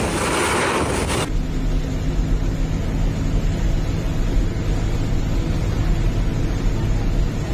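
A loud rushing noise for about a second, then an abrupt change to an engine running steadily with a deep rumble.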